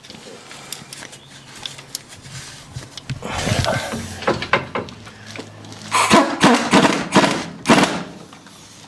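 Scattered knocks and clunks of tools and metal parts being handled during front axle and brake work on a Jeep, with a scraping rustle about three seconds in and a quicker run of knocks around six to eight seconds in.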